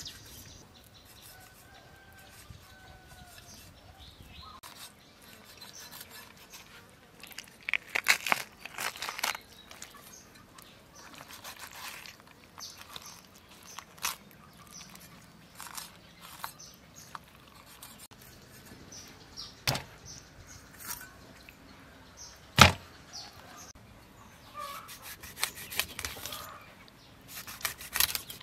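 Cleaver cutting through a large raw fish on a thick wooden chopping board: scattered knocks and taps of the blade against the wood, the loudest a single hard chop about two-thirds of the way through. Faint bird chirps in the background.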